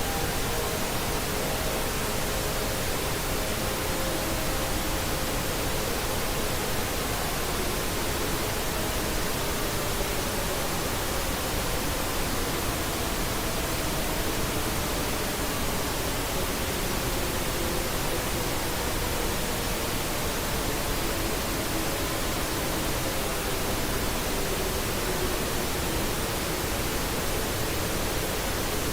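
Steady hiss of static noise, with a few faint tones underneath slowly sliding down in pitch.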